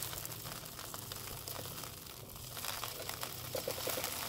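Crinkling and rustling with scattered light clicks: a bag of bird seed and the loose seed being handled while a bird feeder is filled.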